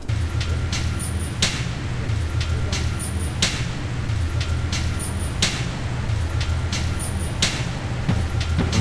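Background music with a deep bass and a steady beat, a sharp hit about every two seconds.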